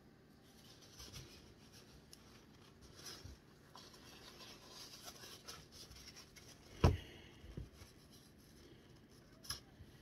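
Paper rustling and crinkling as hands work around a bench vise, with a sharp knock about seven seconds in, a lighter one just after, and a short click near the end.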